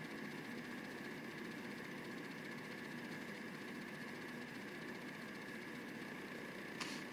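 Steady background hum with a thin high whine over it, and a short click near the end.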